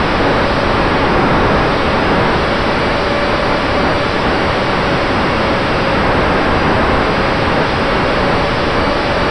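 Steady rush of airflow over the onboard camera's microphone on a small RC foam plane in flight, with the faint steady whine of its electric motor and propeller underneath.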